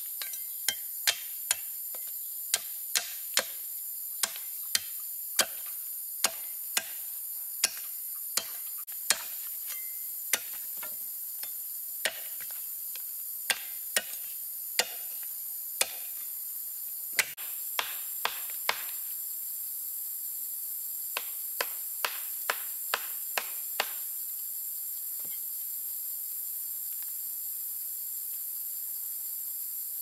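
Cleaver blade chopping into a wooden branch: a long series of sharp knocks, roughly one to two a second, with a short pause about 19 seconds in, a last quicker run, and no more chops after about 24 seconds. Under it runs a steady high insect drone.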